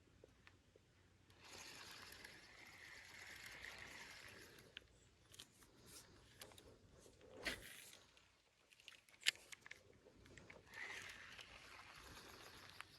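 A spinning reel being cranked to bring in a lure, in two stretches of faint, even whirring, with a few sharp clicks in between.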